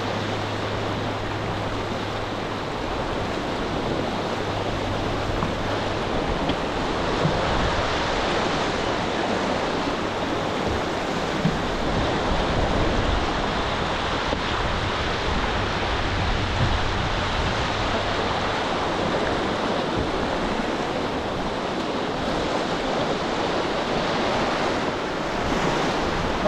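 River whitewater rushing and breaking around a canoe, a steady wash of churning water.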